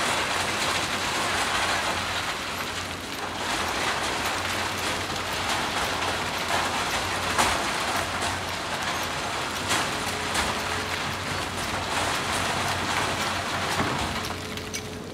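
Diesel hydraulic excavators working, with an even mechanical din and scattered sharp clatters of rock dropping from the buckets into dump truck beds.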